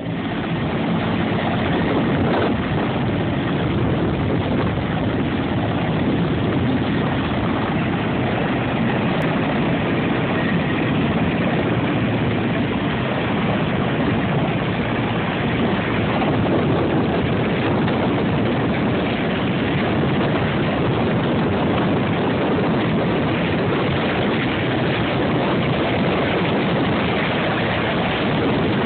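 Helicopter running with a loud, steady engine and rotor noise that holds even throughout.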